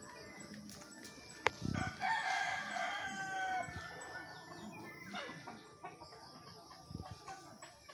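A rooster crows once, about two seconds in, in one long call. A sharp click comes just before it.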